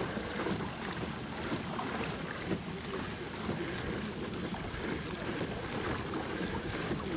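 A boat motor running steadily, with wind buffeting the microphone.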